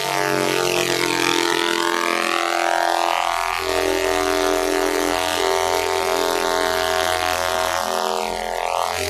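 Synthesized sci-fi laser sound effect: a sustained electronic tone with many overtones, its upper parts sweeping up and down. A deeper hum joins about three and a half seconds in.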